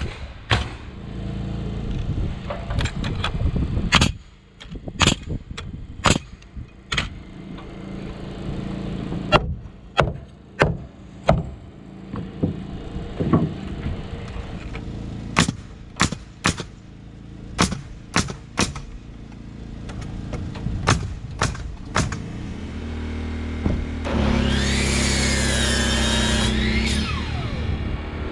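Nails being driven into wood framing: an irregular series of sharp knocks. Near the end comes a few seconds of a motor running with a whine that wavers up and down.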